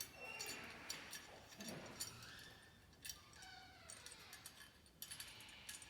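Faint, scattered clicks and clinks of small metal parts as a nut and washers are handled and threaded onto a bolt.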